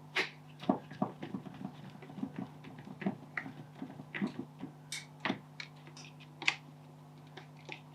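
Scattered small clicks and taps of a small Phillips screwdriver and screws being worked into the plastic headphone housing, with a few sharper clicks, over a faint steady low hum.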